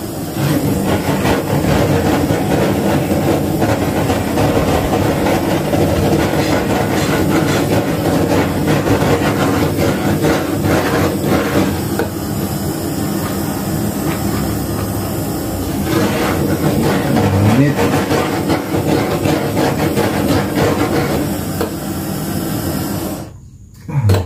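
Electric heat gun running steadily, its fan and hot air blowing as it heats PVC pipe to soften it. It cuts off about a second before the end.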